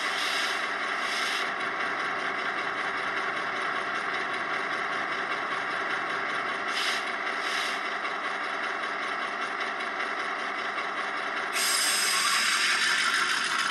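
ESU LokSound decoder playing an EMD 8-645 diesel engine idling through a small 20x20x7 mm megabass speaker in a model locomotive, with two short bursts of hiss. About 11.5 seconds in, a louder hiss comes in and the engine note begins to rise.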